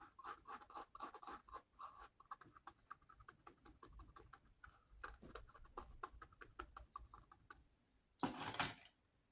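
Paint brush dabbing and stroking fluid acrylic paint onto paper: a quick run of faint light ticks and scratches, with a brief louder rustle about eight seconds in.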